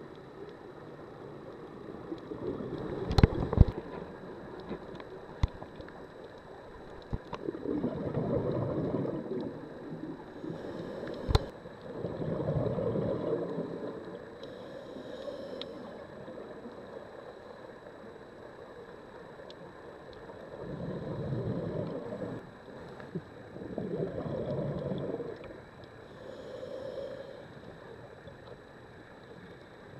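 Underwater scuba breathing through a regulator: bursts of exhaled bubbles, each lasting about a second or two, a few seconds apart, with quieter hissing inhalations between them. A few sharp clicks and knocks, the loudest about three seconds in.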